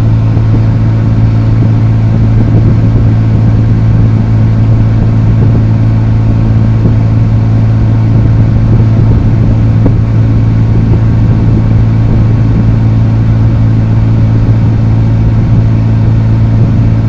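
Chevy Avalanche idling with its air conditioning and blower fan running, heard from inside the cab: a loud, steady hum. The A/C compressor is newly replaced and the cab is cooling well.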